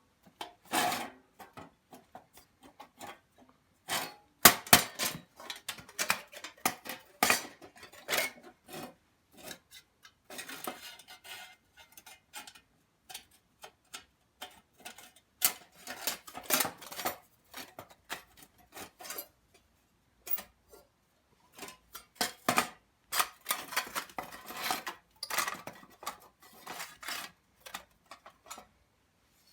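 Metal camping cookware and utensils being handled: irregular clinks and knocks, some in quick runs, with a few short scrapes.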